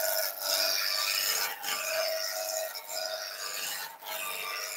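Roughing gouge cutting a spinning ash blank on a wood lathe: a continuous shearing, rasping cut of shavings, dipping briefly about every second as the gouge is passed back and forth along the blank.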